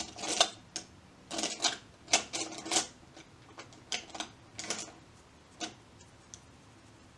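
A string of light, irregular clicks and taps, quick at first and thinning out after about three seconds: makeup brushes and products being handled and set down on a table.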